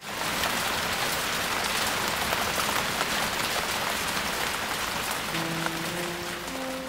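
Steady rain with many small drops pattering. About five seconds in, slow, held notes of music come in under it.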